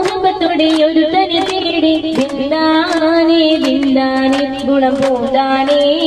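A woman singing a melodic song into a handheld microphone, holding long notes that bend in pitch, with short sharp hits keeping a loose beat behind her.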